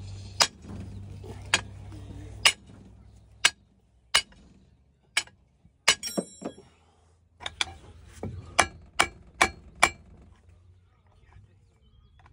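Metal hand tools clinking and knocking against each other and on metal while an engine is being stripped: irregular sharp clinks, one ringing on briefly about six seconds in, and a quicker flurry later. A low steady hum stops about two seconds in.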